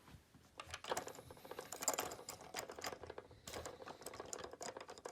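Irregular clicks and light knocks of plastic toy train cars being handled, as a caboose's coupler is slipped down over the freight car's coupler.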